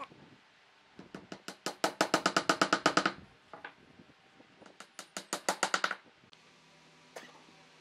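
Two runs of quick, sharp knocks, speeding up to about ten a second, with a faint steady tone underneath near the end.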